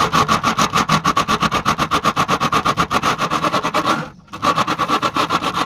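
A metalworking tool rasping on metal in rapid, even strokes, about nine a second, with a brief pause about four seconds in.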